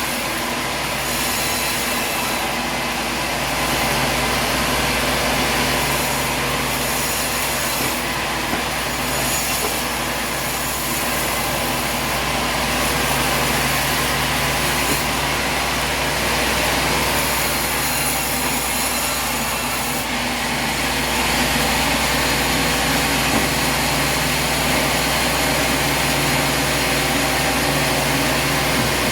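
Sawmill running steadily, its engine and blade together, with the level stepping up slightly about four seconds in and again about twenty-one seconds in.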